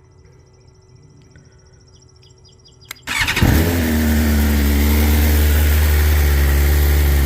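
BMW S1000RR's inline-four engine started about three seconds in: a sharp click, then it catches at once, revs briefly higher and settles into a steady idle.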